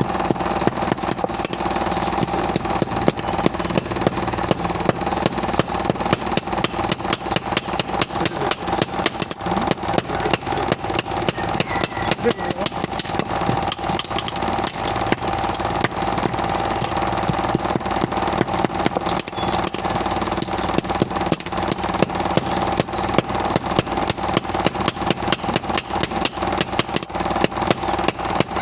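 Metal being hammered at a blacksmith's forge: fast, regular strikes, several a second, with a bright ring after many blows, over a steady hum.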